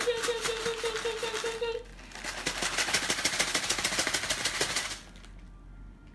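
Doughnuts and sugar shaken hard in a closed plastic zip bag: a fast, loud rattling crinkle that stops about five seconds in. Over the first two seconds a voice holds a wavering sung note.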